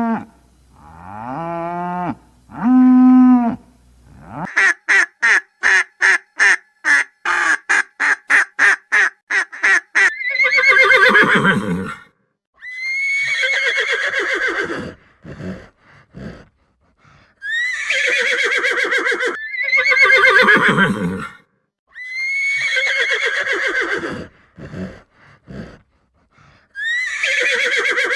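Horse neighing. A fast run of short pulsed calls is followed by several long whinnies, each about two seconds. A cow's moos come first, in the opening few seconds.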